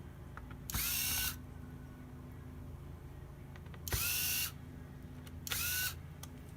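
Small electric screwdriver running in three short bursts of about half a second each, its motor whine rising as it spins up each time.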